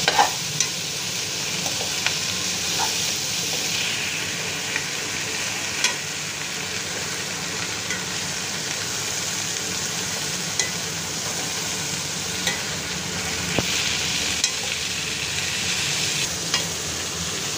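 Jackfruit pieces and sliced onions sizzling in hot oil in a metal kadhai as a spoon stirs them, with scattered clicks of the spoon against the pan.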